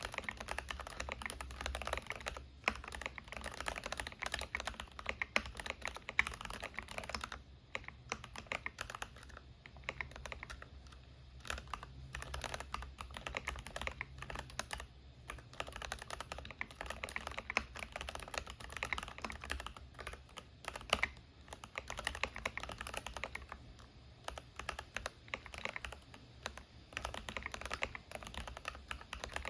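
Continuous typing on a stock Keychron K8 Pro mechanical keyboard with Gateron G Pro Red linear switches and PBT keycaps: rapid key clacks in runs, with brief pauses and occasional louder strokes such as the space bar.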